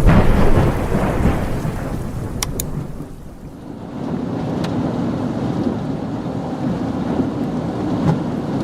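Thunderstorm sounds: a loud rumble of thunder at the start that fades over about three seconds, then steady rain and wind noise with a few sharp ticks.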